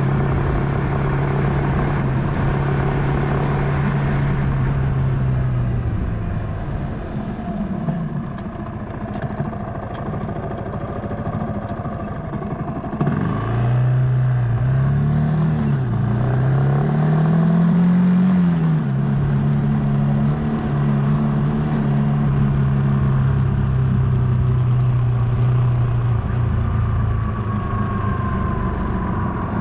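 Suzuki GrassTracker BigBoy's single-cylinder engine running under way, heard from on board. It holds a steady cruise, eases off about five seconds in, picks up again about thirteen seconds in with its pitch rising and falling for several seconds, then settles back to a steady cruise and eases off near the end.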